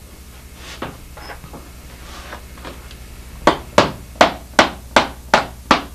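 Claw hammer driving a nail into a plywood boat panel, tacking it temporarily in place: a light tap about a second in, then from about halfway a steady run of seven sharp strikes, roughly two and a half a second.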